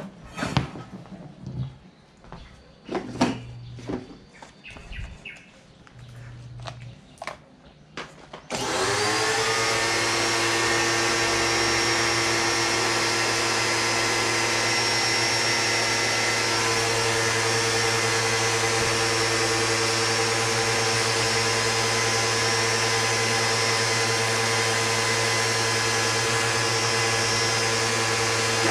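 An electric pressure washer starts about eight seconds in and runs steadily: a motor hum with a few held tones over the hiss of its water jet. Before it starts there are a few scattered clicks and knocks.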